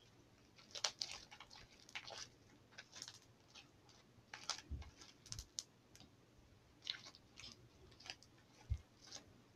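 Sticky homemade lime-green slime being stretched and squeezed by hand, giving faint, irregular wet clicks and pops as it pulls apart and slaps together. There are a few soft low thumps, the loudest near the end.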